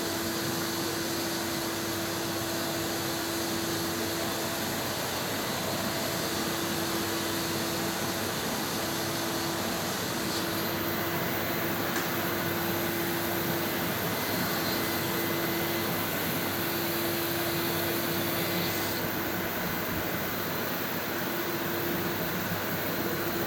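Vacuum running steadily with a constant hum, sucking wasps through a cyclone separator into a bucket.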